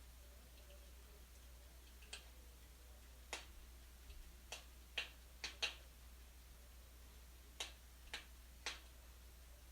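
Wood fire crackling in a fireplace: about ten faint, sharp pops and snaps at irregular intervals.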